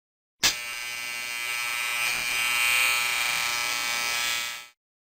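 Electric shaver switched on, buzzing steadily for about four seconds, then switched off.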